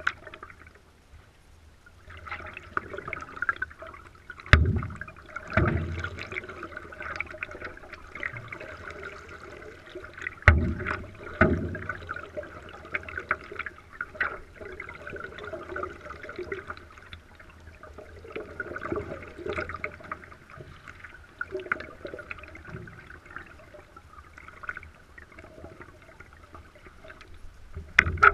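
Water gurgling and trickling against a stand-up paddleboard as it is paddled along. Four dull knocks come in two pairs, about a second apart, around five and eleven seconds in.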